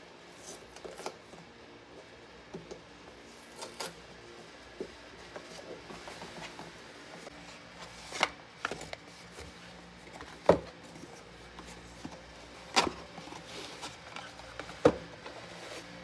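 Cardboard packaging being handled: box flaps rustling and scraping as small product boxes are lifted out. Several sharp knocks in the second half as the boxes are set down on a table.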